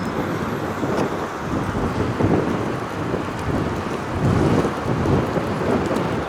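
Severe thunderstorm ambience: strong gusting wind buffeting the microphone over steady rain, with low rumbling swells every couple of seconds.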